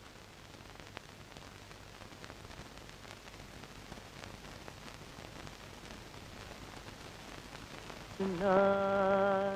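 Steady hiss of an old film soundtrack, slowly growing. About eight seconds in, a single held musical note starts, wavering briefly and then holding steady.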